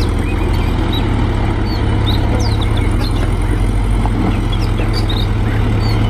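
A dump truck's diesel engine running with a steady low rumble. Birds chirp faintly over it.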